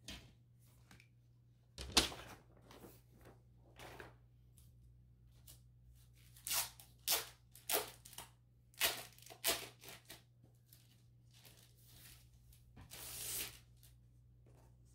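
A cheap poster-style picture frame, its glass and its backing board being handled on a rug. There is a sharp knock about two seconds in, then a run of about six short scraping clicks in the middle, and a longer scraping noise that swells near the end.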